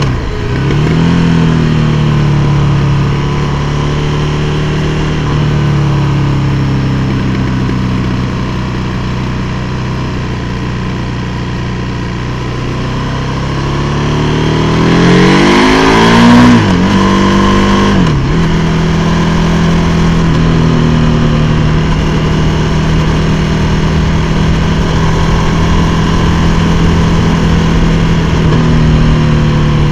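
KTM 1290 Super Duke R's V-twin engine heard from on board the bike: the engine note sinks slowly through the first dozen seconds, then revs up to its loudest about sixteen seconds in, drops sharply, and runs at a steady pitch for the rest.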